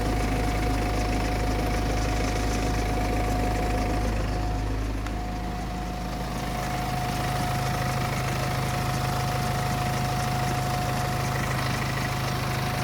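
BMW N47 2.0-litre four-cylinder diesel idling with a steady whining tone over the engine note, which shifts slightly about six seconds in. The noise came from a worn timing chain; replacing the chain cured it.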